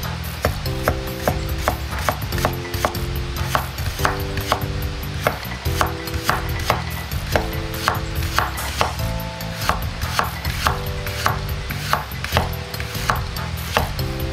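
Chinese cleaver slicing a carrot into thin rounds, each stroke knocking on the cutting board in a steady run of about two to three chops a second, over background music.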